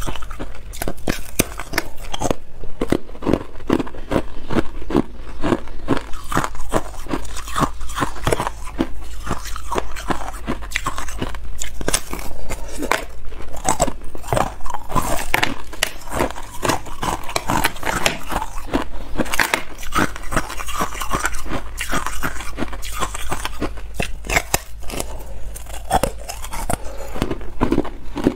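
Thin balloon ice being bitten and chewed: a dense, continuous run of crisp cracks and crunches as the ice shell breaks between the teeth.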